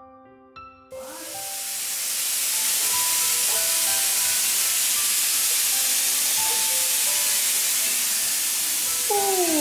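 Water pouring from a tap into a bathtub as it fills: a steady hiss and splash that starts about a second in and holds level. Near the end a short, falling, high-pitched squeak sounds over it.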